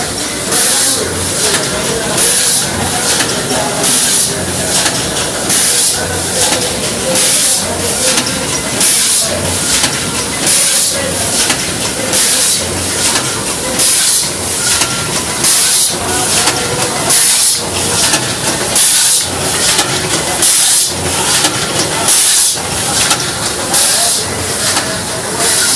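Savema SVM 32 packaging machine running continuously, with a sharp hiss about once a second as it cycles, over a steady mechanical din.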